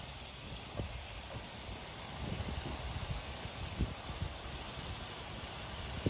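Battery-powered JAKKS Pacific PowerTrains toy train running along plastic track, a steady whirring hiss, with irregular low thumps underneath.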